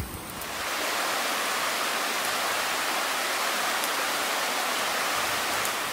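Mountain creek rushing over rocks: a steady, even rush of water that comes in about half a second in.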